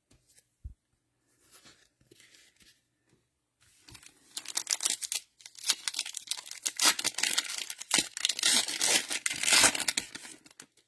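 Cellophane wrapper of a trading card pack being torn open and crinkled, starting about four seconds in after a few faint clicks.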